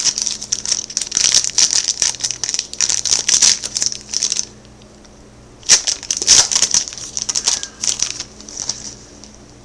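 Foil wrapper of a 2010 Bowman baseball card pack crinkling as it is opened by hand: a dense crackle for about four seconds, then a shorter burst about a second later and a fainter one after it.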